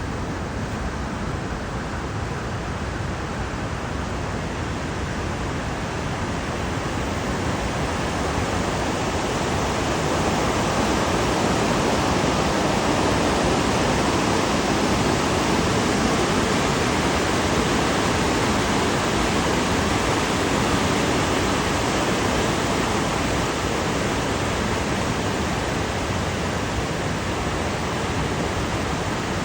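Mountain river rushing: a steady, even rush of water that grows somewhat louder about a third of the way in and eases a little toward the end.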